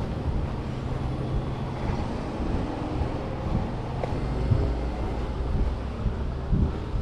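Road traffic going by close at hand: car engines and tyres making a steady low rumble.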